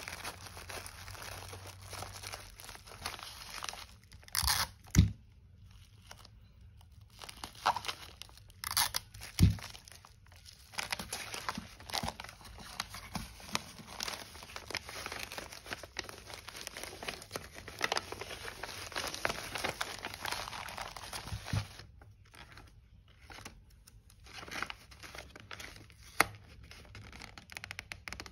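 Plastic bubble wrap being cut with scissors and wrapped around an item, with continuous crinkling and rustling and two sharp knocks about 5 and 9 seconds in. Near the end a kraft paper mailer rustles as it is handled.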